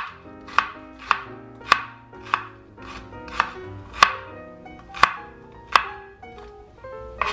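Kitchen knife dicing an onion on a cutting board: sharp knocks of the blade striking the board, about two a second at first, then spacing out toward the end.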